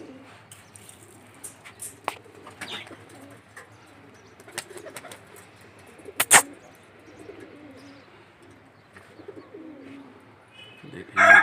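Domestic pigeons cooing softly, with scattered faint clicks and one sharp clack about six seconds in.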